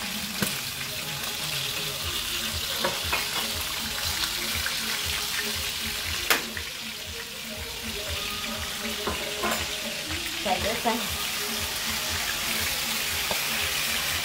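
Onion and tomato-paste seasoning sizzling steadily in hot oil in a steel pan, with a few sharp clicks of a metal utensil against the pan, the loudest a little past the middle.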